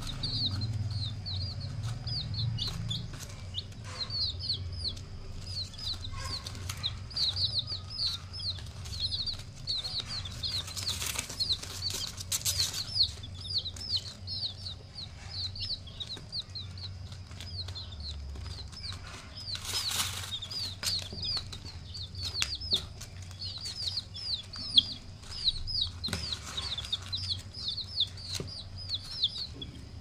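A crowd of baby chicks peeping nonstop: many short, high, falling cheeps overlapping, several a second, over a low steady hum, with a few brief rustles.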